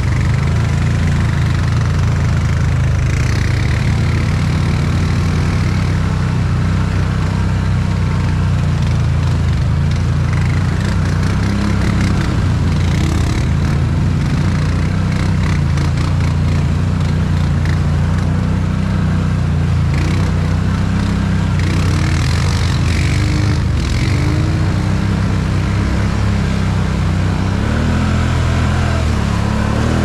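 Can-Am Outlander 1000 ATV's V-twin engine running steadily at low revs, its pitch wavering a little near the end.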